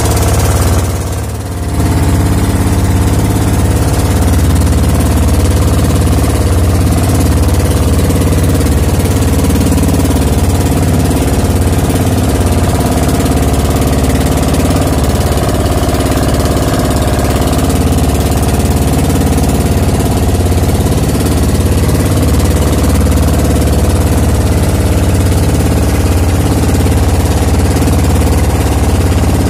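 Outrigger fishing boat's motor running steadily with the boat underway. A loud, even drone with its weight low in pitch, briefly dipping about a second in.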